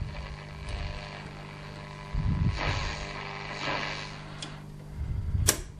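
Pionier U2 valve radio being tuned between stations: steady mains hum under hiss and crackling interference, with swells of noise as the dial moves and a sharp crackle near the end. The interference is of the kind the uploader puts down to energy-saving bulbs and switch-mode power supplies.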